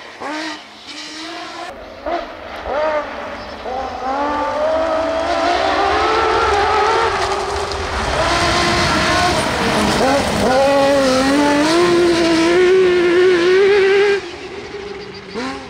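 Lancia Stratos rally car's V6 engine at full throttle, revving up and falling back through gear changes as it comes past and pulls away on loose gravel. Quieter for the first few seconds, it builds to its loudest near the end, then cuts off abruptly.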